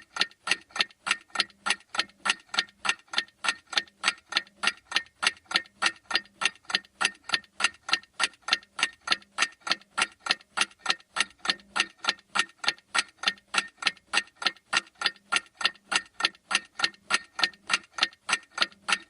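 Countdown-timer clock-ticking sound effect: sharp, even ticks several times a second, keeping an unchanging beat.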